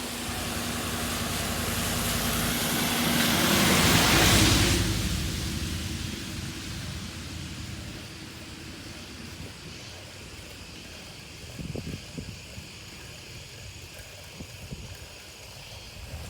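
A motor vehicle passing by: engine and tyre noise swells to its loudest about four seconds in, then fades away over the next few seconds.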